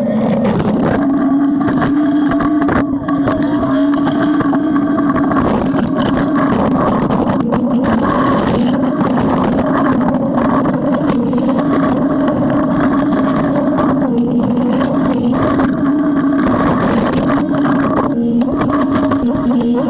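John Deere backhoe's diesel engine running steadily under load while pushing snow with an angle blade, its pitch dipping briefly near the end.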